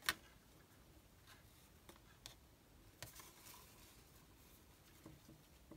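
Near silence: faint rustling of ribbon and card being handled, with a sharp click right at the start and a few soft ticks.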